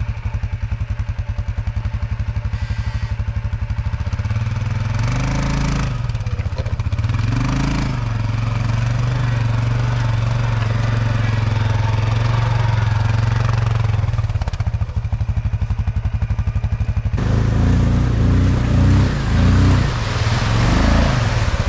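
Quad bike engine running under way, its revs rising and falling twice, about four seconds in and again near the end.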